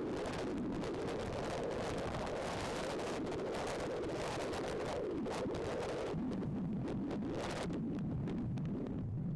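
Wind buffeting the phone's microphone: a steady rumbling noise with crackling through it.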